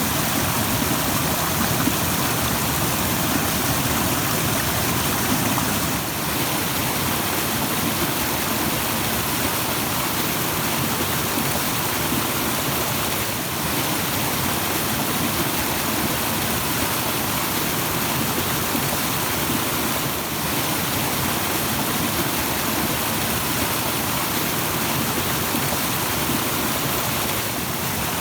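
Rushing stream water, a steady, unbroken rush.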